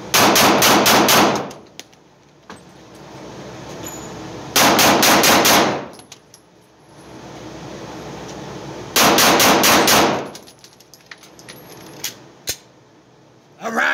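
Arex Delta L Gen 2 9mm pistol fired in three rapid strings of five shots, each string lasting about a second, about four and a half seconds apart, echoing in an indoor range.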